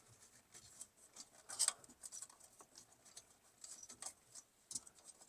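Turn signal switch wiring, bundled in painter's tape, being pulled through a steering column: light scratching and rustling with small irregular clicks, the sharpest a little past one and a half seconds in.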